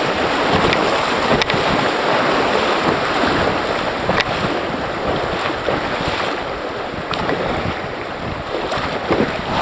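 Steady rushing noise of wind on the microphone and river water moving around a canoe, with a few faint clicks.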